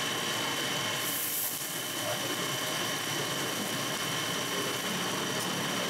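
Oyster omelet of egg, oysters and bean sprouts sizzling steadily on a flat griddle, with a steady high-pitched tone running through the sizzle.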